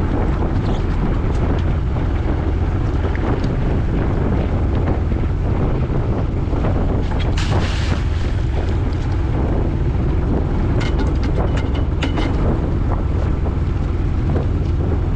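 Wind buffeting the microphone over the steady low drone of a boat under way, with water rushing along the hull. About halfway through, a lobster pot splashes into the sea, and a few sharp knocks of gear follow a few seconds later.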